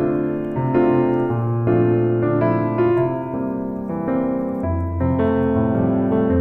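Background piano music: chords changing about every half second over a low sustained bass line.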